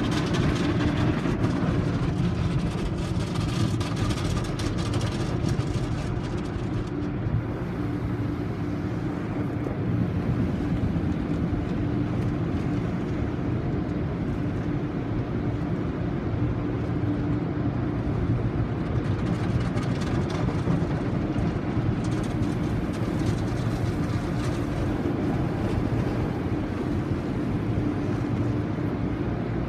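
Automatic tunnel car wash heard from inside the car: water jets spraying over the body and windshield while the wash machinery runs with a steady hum and low rumble. The hiss of the spray swells in the first few seconds and again about two-thirds of the way through.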